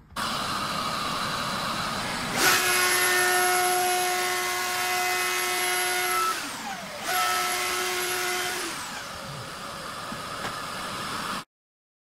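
A dust extractor runs with a steady rushing noise. About two seconds in, a DeWalt plunge router fitted with a dust shroud starts with a high steady whine as it flush-trims a plywood edge. It spins down after about four seconds, starts again a second later and spins down once more. All sound cuts off near the end.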